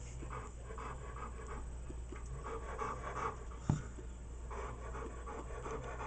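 A dog panting quietly over a steady low hum, with one sharp knock a little past halfway.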